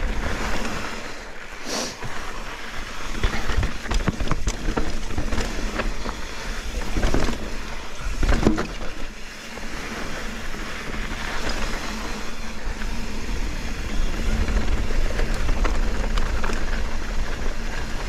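Mountain bike running fast down a loose gravel and dirt trail: tyres rolling over the stones with many sharp rattles and knocks from the bike over bumps, and wind rushing on the microphone as a steady low rumble.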